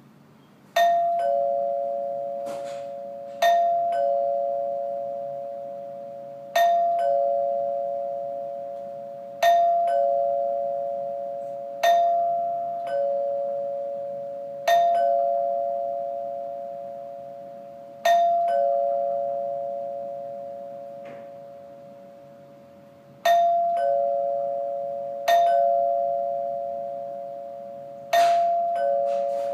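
Utilitech/Heath-Zenith two-note door chime rung about ten times at irregular intervals: each ring is a higher ding followed a fraction of a second later by a lower dong, both notes ringing and slowly fading.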